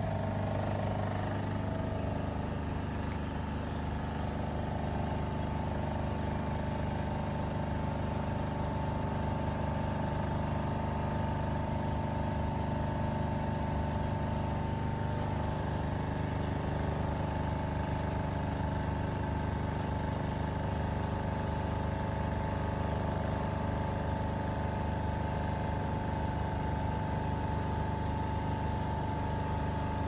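De'Longhi Magnifica S Smart fully automatic coffee machine's pump running steadily as it brews coffee through the twin spout into two cups. It makes a constant mechanical hum with a steady whine, and the low part of the hum changes about a second in.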